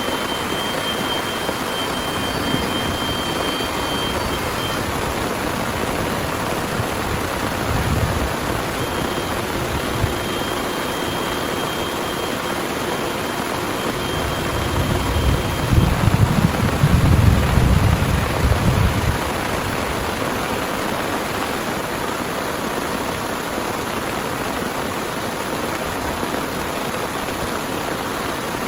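Heavy rain pouring steadily, with a low rumble of thunder about fifteen seconds in that lasts a few seconds and a fainter rumble around eight seconds in. A faint, high, steady tone comes and goes in the first half.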